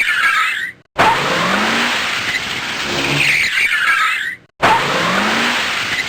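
Car tyres screeching, a short clip played over and over: it cuts off suddenly about a second in and again at about four and a half seconds, each time starting straight back up.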